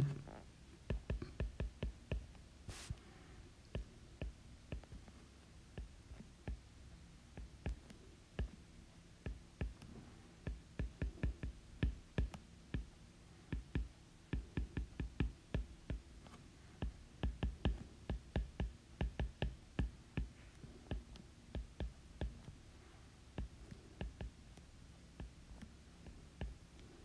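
Stylus tapping and ticking on an iPad's glass screen while handwriting, faint small clicks in quick irregular runs with short pauses between them.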